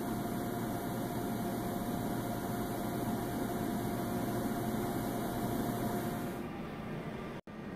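Steady machine noise: a low hum with an even hiss over it, dropping out for an instant near the end.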